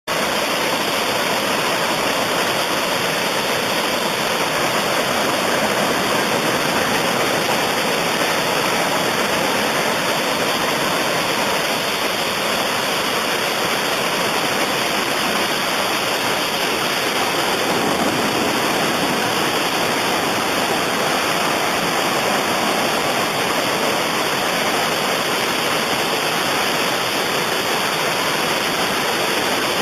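Ocean surf making a steady, unbroken roar, with no separate wave crashes standing out.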